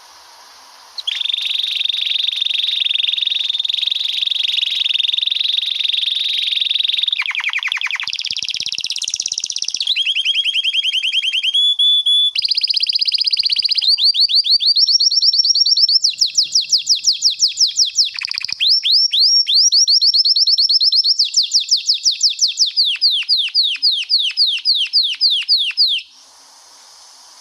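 Male canary singing one long rolling song of about 25 seconds. It begins about a second in with a long, even trill, then moves through a series of different trills and fast repeated swept notes, several a second, and stops shortly before the end.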